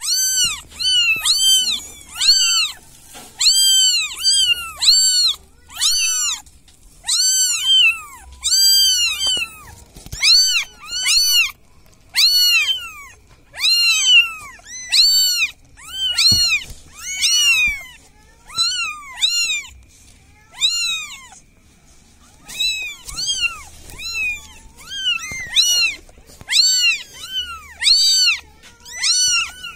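Newborn kittens mewing over and over in thin, high-pitched cries that rise and fall in pitch, about two a second, with a few short breaks. These are the insistent distress calls of kittens too young to open their eyes, crying for help.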